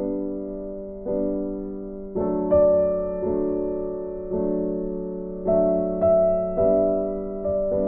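Slow piano background music, with notes and chords struck about once a second and left to fade.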